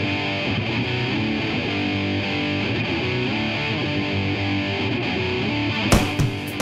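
Background rock music led by guitar, with a steady pitched backing. About six seconds in it turns louder and sharper, with hard beats.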